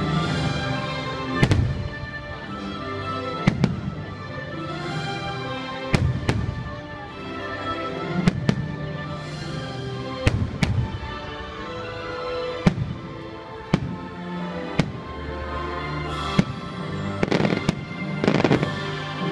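Aerial firework shells bursting with sharp bangs every second or two, several in quick succession near the end, over the fireworks show's soundtrack music.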